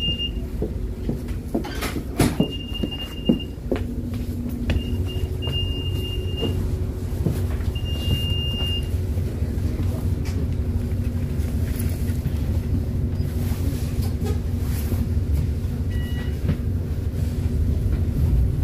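Interior of a Wright Gemini 3 double-decker bus: the engine runs steadily with a low hum. A high electronic beep sounds several times in the first nine seconds, and there are a couple of sharp knocks about two and three seconds in.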